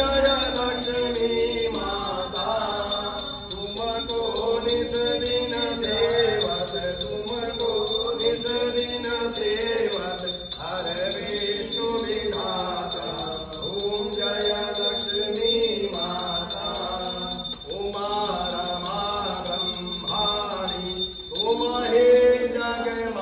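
Hindu mantras chanted in a melodic voice, short sung phrases following one another about every two seconds, during a havan fire offering.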